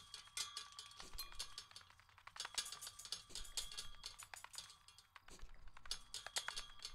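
Tin hand-held flour sifter being worked: fast, irregular metallic clicking and rattling with a faint ring.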